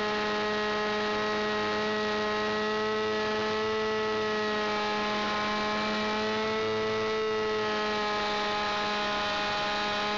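Small fuel-burning engine of an RC aerobatic model airplane running in flight, heard from on board: a steady drone that swells slightly in pitch twice, about four and seven seconds in.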